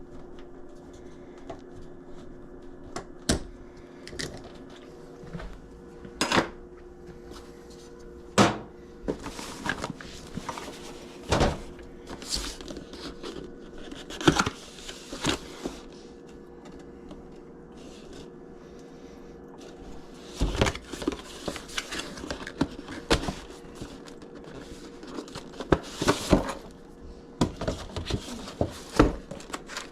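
Irregular clicks, knocks and clatter of hands working with tools and small hardware, busier in the last third, over a steady low hum that is clearest in the first half.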